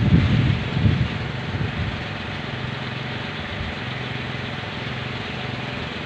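Kolecer, bamboo wind propellers on tall poles, whirring in strong wind with a steady low drone. Gusts of wind buffet the microphone during the first second.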